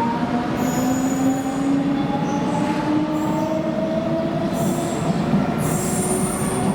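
CP Lisboa suburban electric multiple unit pulling away, its traction motor whine rising slowly in pitch as it speeds up. Several short high-pitched wheel squeals cut in over it.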